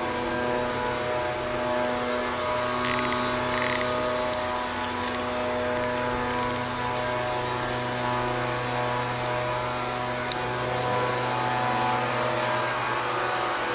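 A distant engine droning steadily, a low hum with many overtones that drifts slightly in pitch. A few brief high clicks come about three seconds in, again near four seconds and again at six and a half seconds.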